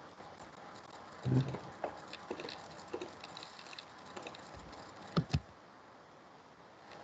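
Faint clicks and taps of a computer mouse and keyboard while a slide is edited, with a brief low thud about a second in and a sharp double click a little after five seconds in.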